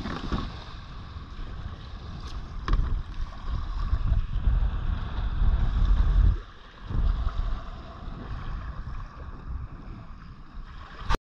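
Wind buffeting the microphone in gusts on a kayak at sea, a low rumble over the hiss of water, with a couple of light knocks a few seconds in. The sound cuts off abruptly at the end.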